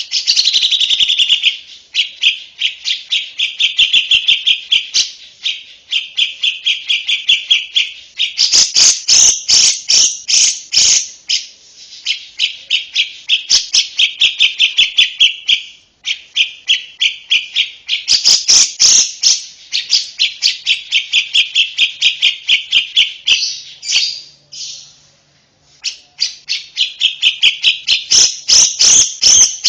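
Lovebird singing long runs of rapid, high chattering chirps. Each run lasts several seconds, with a few short breaks between them.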